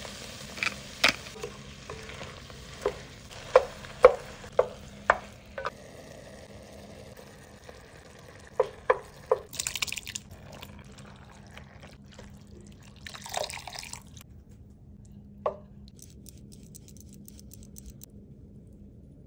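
Home cooking in a pot: a series of sharp taps and clicks of a utensil against the pot as chopped vegetables are stirred. About ten seconds in comes a short splashing rush as crushed tomatoes pour from a can. Near the end there is a faint, quick rasping of cheese on a grater.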